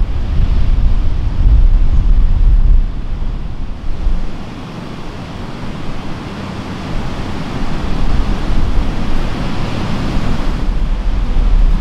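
Surf breaking and washing on a beach, with wind buffeting the microphone in a heavy, gusting rumble. The wash swells about eight seconds in and eases near the end.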